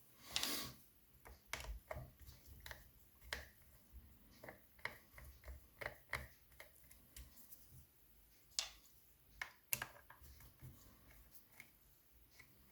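Small metal clicks and taps at irregular intervals from a Century British Standard five-lever mortice lock being handled and taken apart, with a short rustle at the start and two sharper clicks about two-thirds of the way through.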